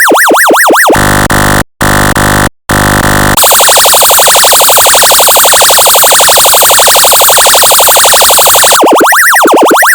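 Electronically generated siren tones that change pattern. First comes a fast sweeping yelp, about four sweeps a second. Then a harsh buzzing horn-like tone cuts out twice briefly, and after that comes a very rapid warble that runs for several seconds. Near the end it turns into a slower up-and-down wail of about two sweeps a second.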